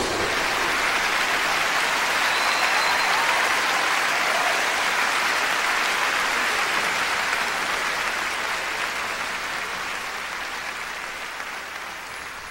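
Concert hall audience applauding at the end of a song, a dense, even clapping that slowly dies away.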